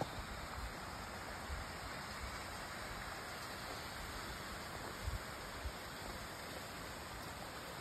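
Small mountain stream running and splashing over rocks, a steady rush, with a few short low thumps about a second in and again around five seconds in.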